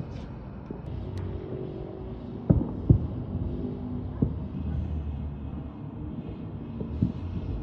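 Fireworks bursting: sharp bangs, two close together about two and a half seconds in, another a little after four seconds and one near the end, over a low steady rumble.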